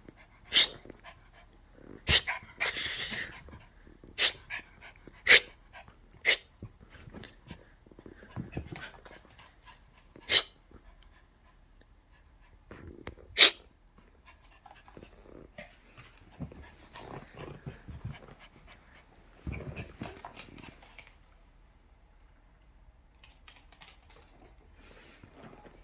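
A poodle panting and breathing, with a scatter of sharp taps and clicks a second or two apart, the loudest about halfway through; it quiets near the end.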